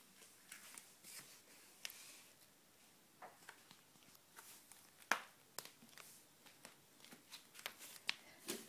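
Faint, scattered clicks and scuffs, the sharpest about five seconds in: a cat pawing and scrabbling on a tile floor, mixed with the phone being handled close to the microphone.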